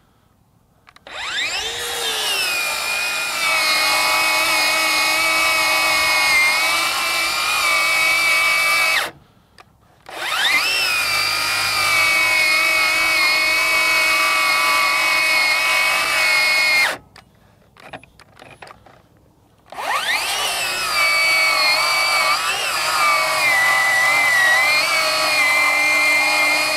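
Ryobi One+ HP 18V brushless 7-1/4-inch circular saw cutting through a pressure-treated 4x4 at full depth. It starts three times, each time with a rising whine that settles under load, and each time it stops abruptly after several seconds. The stops are the saw cutting out, which the user puts down to heating it up.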